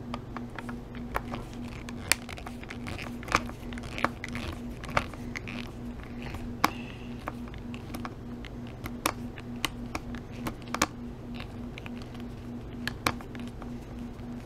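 Screwdriver working out the small case screws of a Fluke 87 III multimeter: irregular sharp clicks and scrapes of the tip in the screw heads and against the plastic case, over a steady low hum.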